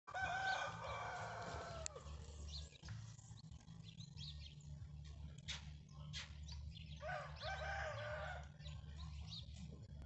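A rooster crowing twice: once at the start and again about seven seconds in. Each crow is a long, held call that falls away at the end.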